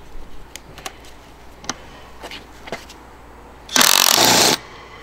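Makita TW007G 40Vmax cordless impact wrench hammering hard for under a second on a screw bolt in a wooden sill, loosening it. A few light clicks and knocks of the tool and socket being handled come before it.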